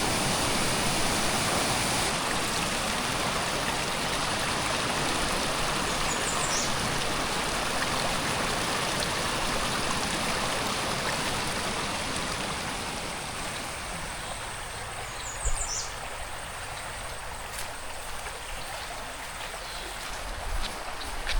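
Forest stream flowing over rocks, a steady rush of water that becomes thinner and a little quieter about two-thirds of the way in. Two short high chirps come through above the water, one about a third of the way in and one later.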